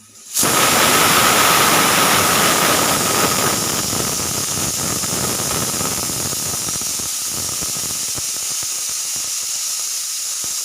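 Pressure cooker whistle blowing: steam bursts out suddenly about half a second in and keeps venting as a loud, steady hiss, with a faint whistling tone strongest in the first few seconds. The pressure inside has built up far enough to lift the weighted valve.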